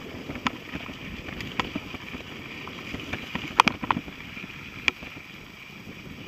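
Mountain bike rolling over a loose gravel dirt track: a steady noise of tyres and wind, with sharp rattling knocks as the bike and its camera mount jolt over stones, a cluster of them loudest about three and a half seconds in.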